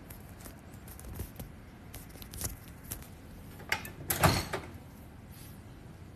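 Light clicks and knocks of something being handled, a few scattered taps and then a louder double knock about four seconds in.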